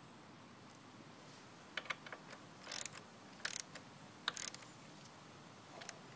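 Socket ratchet wrench clicking in several short bursts, about a second apart, as it is worked back and forth on a bolt.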